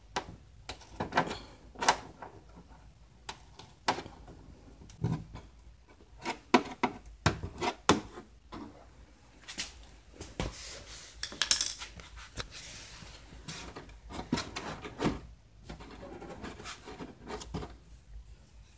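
Screwdriver and hands working a screw and plastic wheel-well trim: scattered irregular clicks and knocks, with a longer scraping rub a little past halfway.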